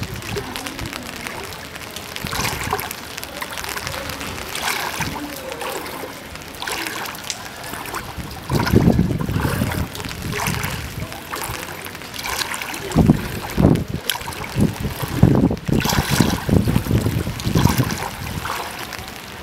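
Wind gusting on the microphone in uneven low rumbles over a constant wash of water. The strongest gusts come about halfway through and again through much of the second half.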